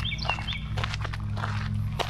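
Steady low drone of a lawn mower engine running nearby, with a bird repeating a quick chirping phrase near the start and footsteps on the trail.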